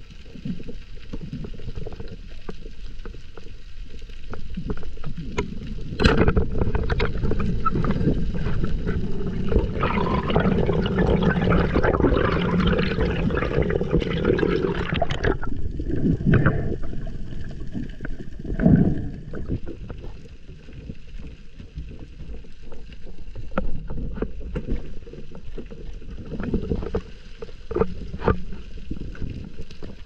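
Underwater water noise: a steady low rush of water past the microphone, then a sharp snap about six seconds in from a speargun being fired. Several seconds of loud churning and bubbling follow while the speared fish is handled, then the rush settles back with scattered clicks.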